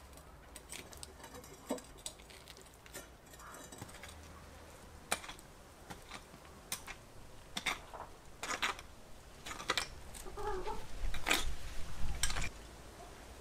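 A shovel scrapes and strikes into soil, a stroke roughly every second, with louder rough scraping near the end. A hen clucks briefly about ten seconds in.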